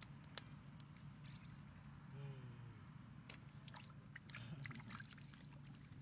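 Faint scattered wet splashes and clicks of hands and fish in shallow muddy water as fish are grabbed by hand, over a steady low hum.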